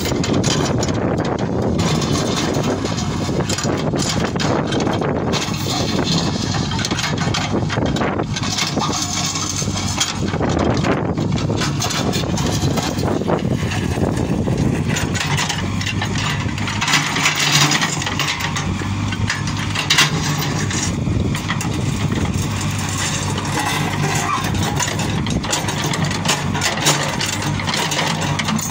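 JCB 3CX backhoe loader's diesel engine running steadily as the backhoe bucket digs through rocky ground, with a few sharp knocks of stone and steel partway through.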